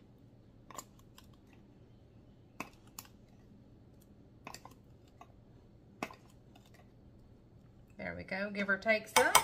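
A few light, separate clicks and taps of a measuring spoon against a plastic spice jar while paprika is spooned out. A woman's voice comes in near the end.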